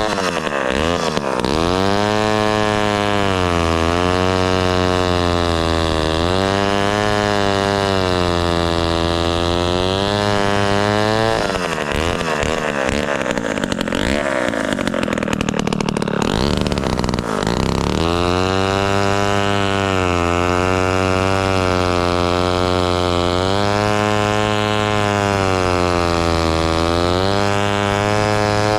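1957 Danarm Fury chainsaw's 98cc Villiers 5F two-stroke engine running, its speed rising and falling every couple of seconds. For about six seconds in the middle the steady note breaks up into a rougher, noisier sound before it settles back.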